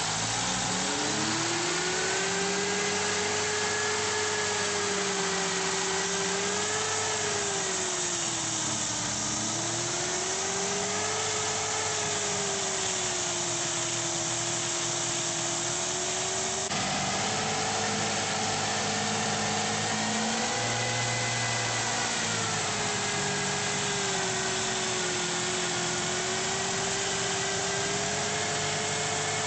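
Fiat 1100's 1100 cc four-stroke carbureted engine held at raised revs, its pitch slowly rising and falling, while water is fed down the carburettor barrel to steam carbon out of the combustion chambers.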